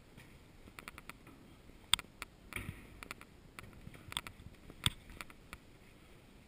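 Footsteps and small knocks and clicks while walking through a narrow stone passage, irregular, with two sharper knocks about two and five seconds in.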